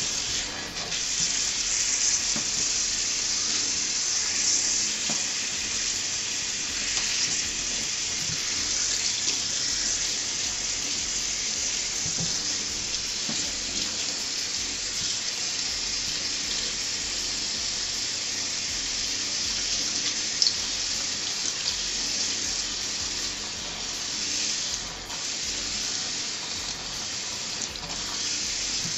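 Kitchen faucet running steadily, its stream splashing over hair and hands into a stainless steel sink as the hair is rinsed by hand.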